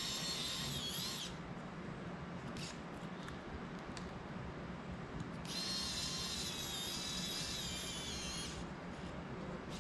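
Electric precision screwdriver whirring in short runs while turning the small screws of a cinewhoop drone's prop guards: a high whine for about a second, two brief blips, then a run of about three seconds.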